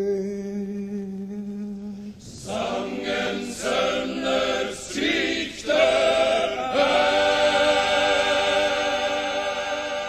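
Men's choir singing: a held note, then a few short sung syllables, ending on a long sustained chord.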